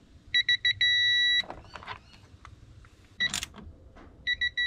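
A digital torque wrench beeping while a battery terminal connection is tightened to 4 N·m. It gives four quick beeps, then a long steady beep, the signal that the set torque has been reached. A few clicks follow, and the same beep pattern starts again near the end for the next connection.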